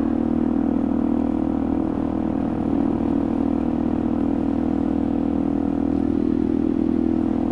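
Motorcycle engine running steadily at cruising speed, heard from the rider's seat: an even hum whose pitch holds nearly level, over a steady rushing noise.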